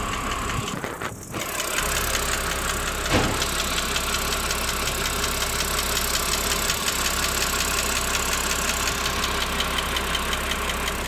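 BMW 330i's N52 straight-six engine running with a rapid, even ticking, the tick that appears 10 to 15 minutes after a cold start, once the engine is warm. A single thump about three seconds in.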